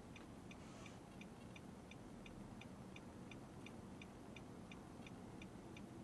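Turn-signal indicator ticking steadily in the quiet cabin of a Nissan Note e-POWER stopped in traffic, about three ticks a second over a faint low hum.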